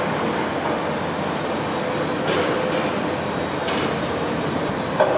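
Steady running noise of heavy construction machinery with a faint held hum, broken by a few sharp knocks.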